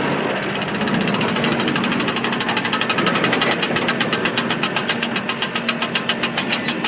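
Tractor engine running with a fast, even clicking from the baler machinery, which grows louder about a second in.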